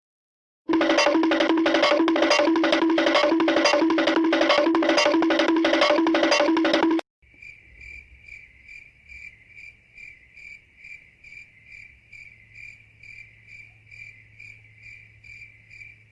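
Two sound effects in turn. First a loud, rhythmic pulsing tone, about two and a half beats a second, which stops suddenly about seven seconds in. Then a faint, even high chirping, about two chirps a second, over a low hum.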